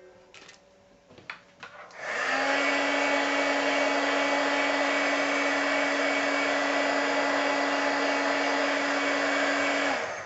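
Handheld heat gun switched on about two seconds in, running steadily with a rush of blown air over a low motor hum, then switched off near the end. It is blowing hot air over wet paint to make it set quicker.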